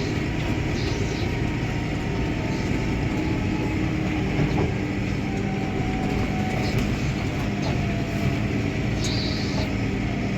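Steady rumble of a vehicle being driven slowly on a gravel road, heard from inside the cab while towing a hay wagon. A low steady hum joins about halfway through.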